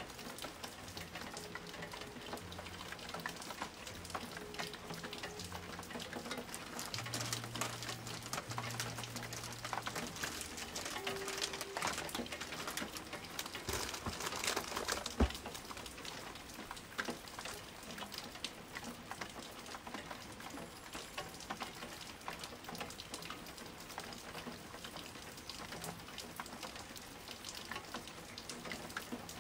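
Rain falling steadily, a fine crackling patter of drops, with one sharp tap about fifteen seconds in.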